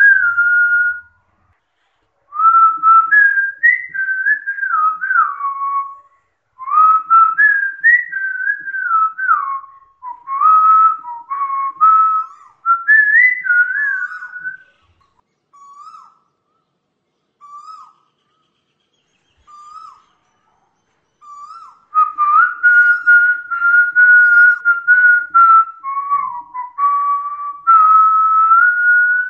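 A person whistling a melody in phrases of a few seconds, sliding between notes, with a sparser stretch of short single notes about halfway through.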